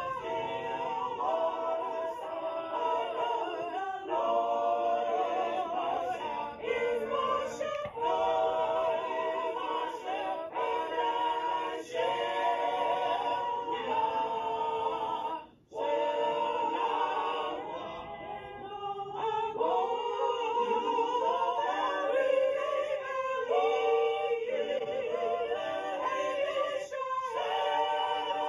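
Small mixed church choir singing, women's and men's voices together, with wavering held notes. The singing breaks off for a moment about fifteen seconds in, then resumes.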